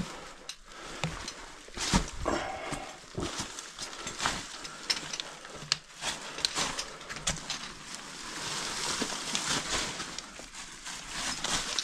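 A caver scrambling down over loose rock on a rope, breathing hard, with irregular scrapes and knocks of boots and stones against rock.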